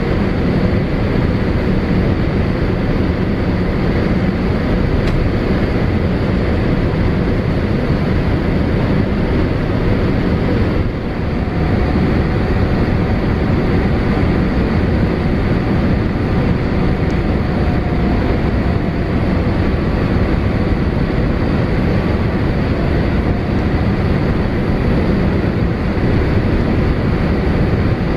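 Steady cabin noise of a Boeing 787-8 on final approach, heard from a window seat beside its Rolls-Royce Trent 1000 engine: a dense, even rumble of engine and airflow with a faint steady high tone over it, easing briefly about eleven seconds in.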